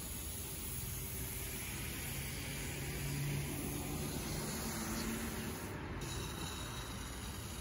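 Steady hiss of a garden hose spray wand watering a flower bed, with a low hum that swells briefly in the middle.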